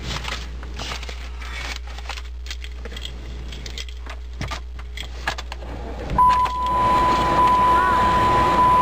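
Rustling and scattered clicks of papers and keys being handled in a car's driver's seat. About six seconds in, a loud steady beep begins and runs on over a hiss, then cuts off abruptly.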